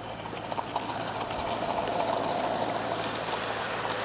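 Regner live-steam garden-railway model of a Saxon VII K narrow-gauge locomotive hauling freight wagons past, with the wheels clicking rapidly over the track. It grows louder as the train draws near.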